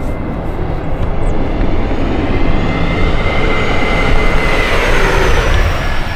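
Large radio-controlled Boeing model airliner flying past, its engines making a steady whine that falls in pitch as it goes by about two thirds of the way through.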